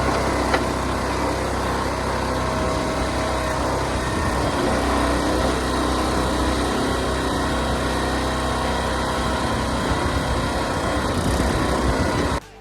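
Small engine of a Harbor Freight backhoe trencher running steadily while it digs a trench, cutting off abruptly near the end.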